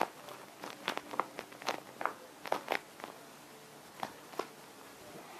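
Squishy toys being handled: a run of short, irregular crackles and clicks that thin out about four seconds in.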